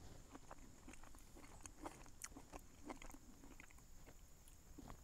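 Faint chewing and small mouth clicks of a person eating a spoonful of rehydrated stew with polenta.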